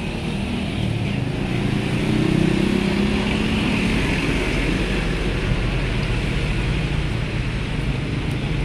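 Oil sizzling and bubbling in a wok as battered pieces deep-fry, a steady hiss that swells a little in the middle, over a low steady rumble.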